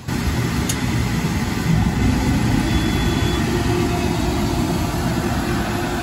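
Steam boiler's burner firing and running: a loud, steady rush with most of its weight low down, starting and stopping suddenly.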